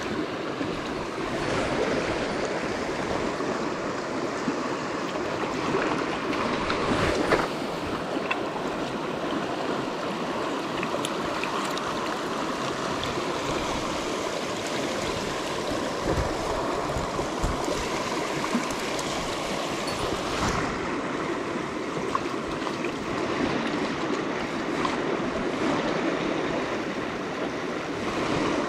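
Shallow mountain stream running over rocks, a steady rush of water, with a few brief knocks or splashes, the loudest about a quarter of the way in.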